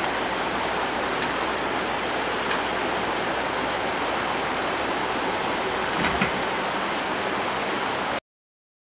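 Steady rush of flowing stream water, with a faint knock about six seconds in; the sound cuts off abruptly near the end.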